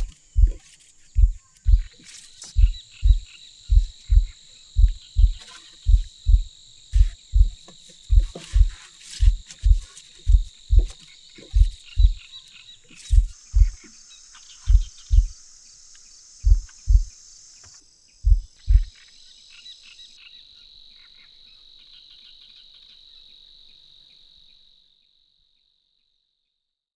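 Footsteps of high-heeled tango shoes on a wooden dock: regular low thumps, about two a second, that stop about two-thirds of the way through. Under them a steady high-pitched insect chorus goes on until it cuts off near the end.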